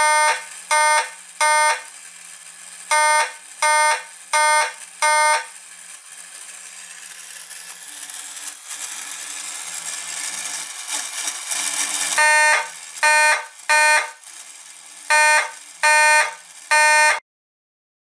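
Simplex 2903 + 9806 electromechanical fire alarm horn sounding in short buzzy blasts, pulsed by a clockwork coded pull station into a location code. The blasts come in groups: three, then four, then a pause of about six seconds, then three and three before the sound cuts off.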